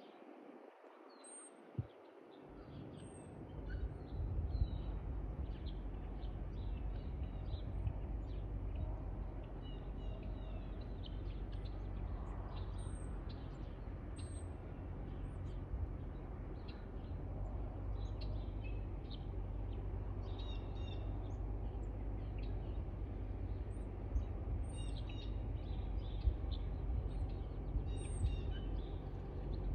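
Low, steady rumble of an approaching freight train's lead diesel locomotive, a CSX GE ET44AH, building up from about two seconds in and holding. Small birds chirp and tweet throughout over the rumble.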